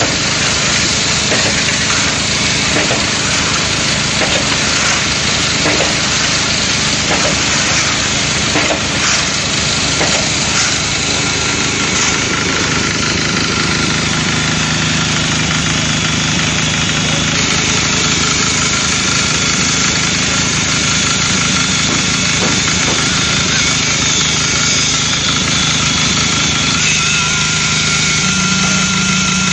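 JZC350 mobile electric concrete mixer running with a steady mechanical drone, with scattered knocks through the first ten seconds or so and a slight change in the low hum near the end.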